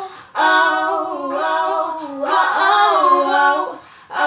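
Two young women singing unaccompanied, holding long wordless "oh" vocal lines that bend up and down in pitch. There are short breaks for breath just after the start and near the end.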